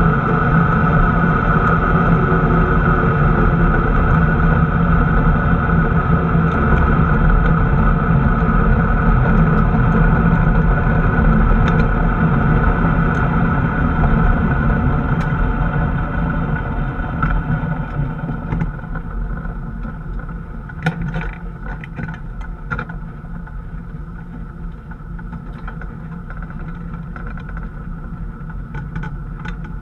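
Pro Mod Camaro drag car's engine running steadily at low speed, heard from inside the cockpit. It grows quieter from about halfway through, and a few sharp clicks and rattles come a little after that.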